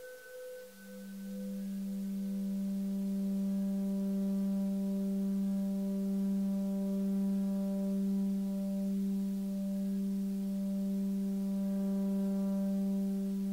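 Film-score drone: a steady, sustained low tone with a stack of overtones, like a singing bowl or tuning fork, swelling in about a second in and holding evenly, while a higher ringing tone dies away in the first couple of seconds.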